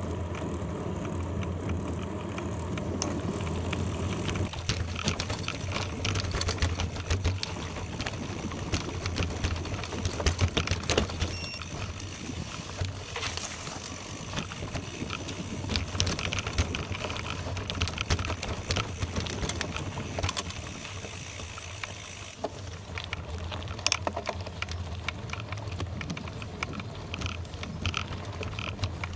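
Bicycle tyres rolling over a gravel road: a steady rumble of rolling noise with many scattered crackles and ticks from loose stones.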